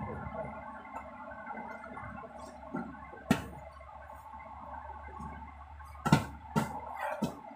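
Deflated rubber inflatable boat being folded and pressed down by hand: dull thumps and fabric rustles, one about three seconds in and several close together near the end, over a steady low hum.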